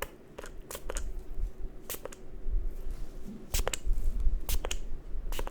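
Close-miked ASMR handling sounds: irregular sharp taps and crackles over a low rumble, as things are rubbed and tapped right against the microphone.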